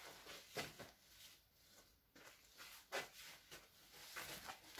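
Near silence: quiet room tone with a few faint taps, about half a second in, near three seconds and again around four seconds.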